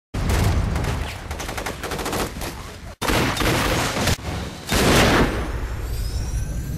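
Rapid gunfire in quick strings of shots, in edited segments that cut off abruptly about three seconds in and again a little after four seconds, with the loudest burst about five seconds in.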